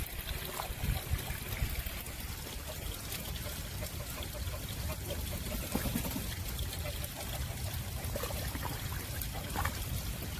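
Water pouring steadily into a shallow pool as it is topped off, a continuous trickling splash.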